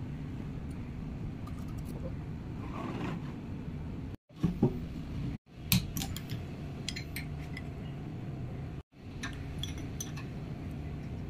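Scattered light metal clinks and taps from a spanner and a truck power take-off unit being handled on a steel-plate bench, over a steady low hum.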